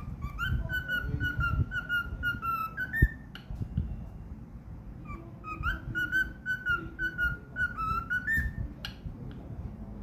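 Cockatiel whistling its song: two phrases of quick repeated notes that drift slightly lower, each ending on a higher note. A sharp click about three seconds in, between the phrases.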